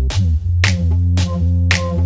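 Electronic background music with a deep, sustained bass line and sharp drum hits.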